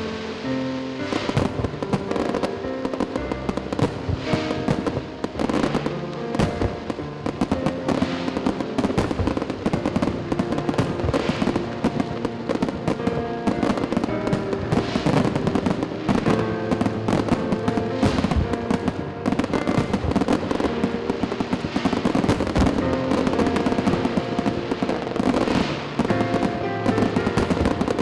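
Aerial fireworks shells bursting and crackling, many bangs in quick succession throughout, over music with steady sustained notes.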